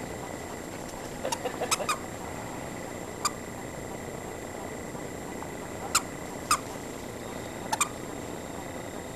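Squeaky dog toy squeaked in short, sharp squeaks as a Norfolk terrier plays with it: a quick run of squeaks between one and two seconds in, then single or paired squeaks a second or two apart.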